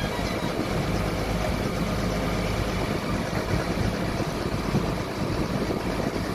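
Steady low hum of a harbour ferry launch's engine, heard from on board.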